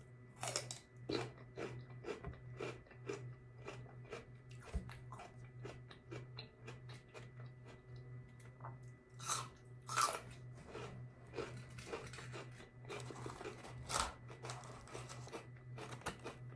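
Close-up crunching and chewing of raw celery sticks dipped in blue cheese: irregular crisp crunches, with a few louder bites.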